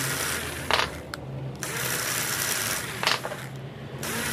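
Rotary tool's abrasive grinding stone scuffing the negative end of a lithium battery cell, in two hissing grinding passes over the tool's steady motor hum, each pass ending with a sharp knock. The negative terminal is being roughened so that solder will take.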